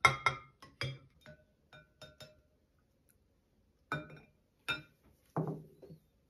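A kitchen utensil clinking against a bowl in a run of sharp taps, each with a brief ring. There is a quick flurry at first, then a pause of about a second and a half, then four slower clinks.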